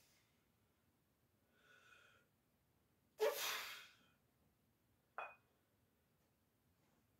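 A man's forceful breaths out during dumbbell chest reps: a faint breath about two seconds in, a loud, sharp puff about three seconds in, and a short one about five seconds in.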